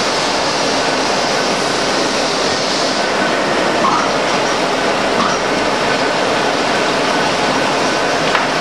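Six-spindle Cone automatic lathe running: a loud, steady, dense mechanical rush that keeps an even level throughout.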